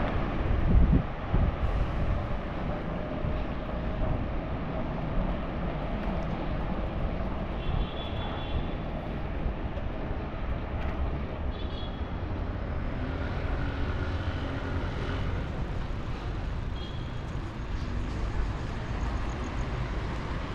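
Wind buffeting the microphone of a camera on a moving bicycle, a steady rumble mixed with road noise, gusting louder in the first second.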